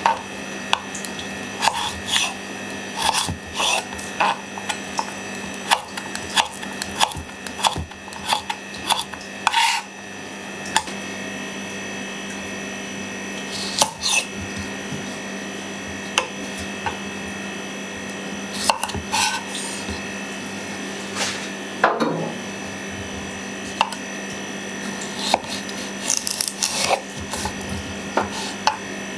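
Kitchen knife cutting radish and then cucumber on a wooden cutting board, the blade meeting the board in irregular sharp clicks. A steady low hum runs underneath.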